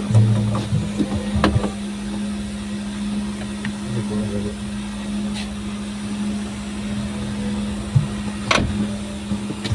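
Daihatsu Gran Max pickup's engine running at a steady pitch, with a few short clicks and knocks, the loudest about eight and a half seconds in.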